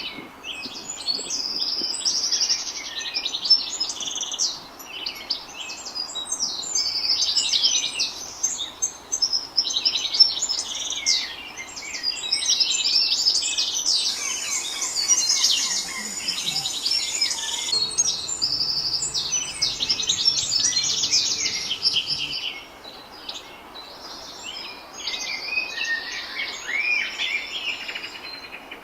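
Several songbirds chirping and singing at once, a dense chorus of quick high chirps and trills that thins out near the end.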